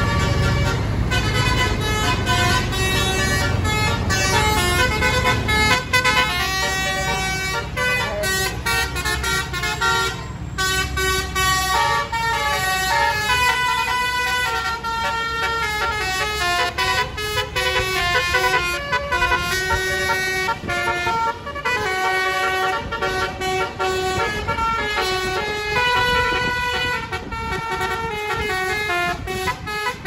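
A tour bus's multi-tone musical air horn, a 'basuri' telolet horn, playing a quick tune of stepping notes. A low traffic rumble sits under it in the first several seconds.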